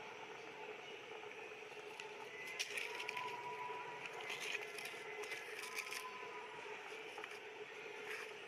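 Quiet background ambience: a steady hiss with a faint held tone and a few scattered soft clicks.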